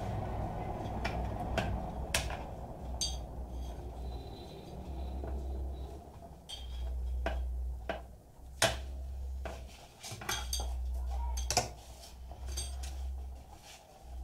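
Metal clinks and knocks from handling the parts and metal casing of an opened computer power supply: about a dozen sharp clicks at irregular intervals, the loudest about two-thirds of the way through, over a low rumble that comes and goes.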